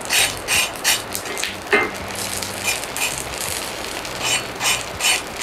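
Rice paper dumplings frying in oil in a cast iron skillet, sizzling with frequent little pops. There is one sharper click a little under two seconds in.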